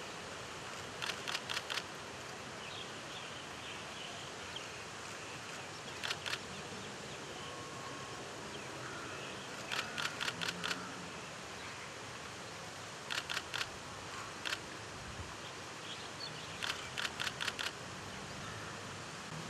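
Camera shutters firing in rapid bursts of a few clicks each, about five bursts, over a steady background hiss.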